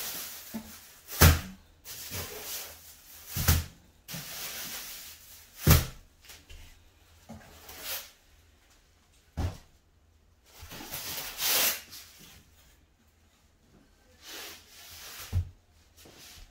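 Plastic packaging wrap rustling in several spells as flat-pack furniture parts are unwrapped and handled, with about five sharp knocks of wooden parts being set down, the loudest about a second in.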